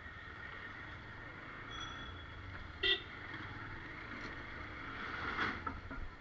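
Street traffic running steadily, with one short, loud vehicle horn toot about three seconds in.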